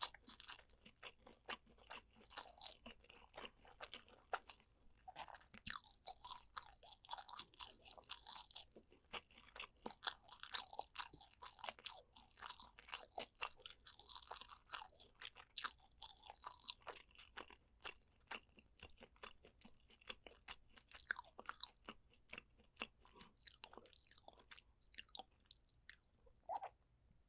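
Close-miked eating sounds: chewing and biting into braised pork ribs, many quick, sharp, wet clicks that grow sparser in the second half and stop just before the end.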